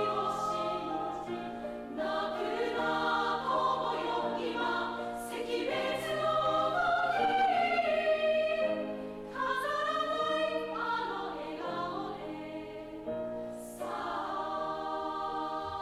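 A choir singing a slow piece in sustained chords that change every second or two.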